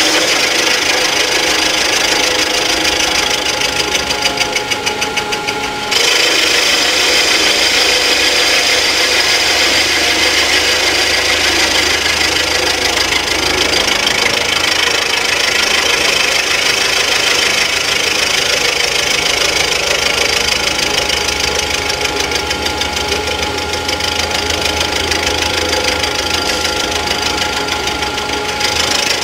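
Rottler F90Y CNC machine's end mill cutting the head-gasket fire deck of an engine block, circular-interpolation milling for a water-hole repair: a loud, steady cutting noise with high ringing tones over a fast chatter. The cut eases briefly and picks up sharply about six seconds in.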